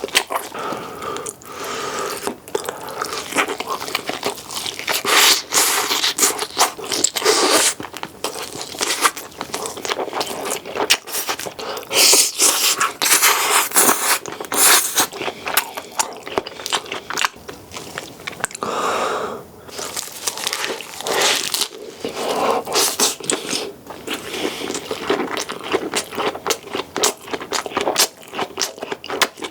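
Close-miked chewing and biting of food, a dense, irregular run of wet crunches and smacks, dipping briefly about two-thirds of the way through.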